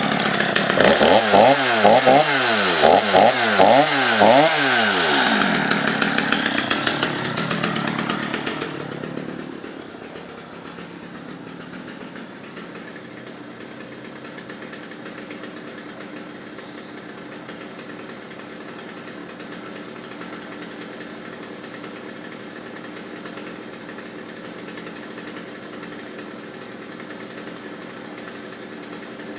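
Stihl MS 250 chainsaw's 45cc two-stroke engine revved up and down several times in quick succession, then falling back to a steady idle about nine seconds in.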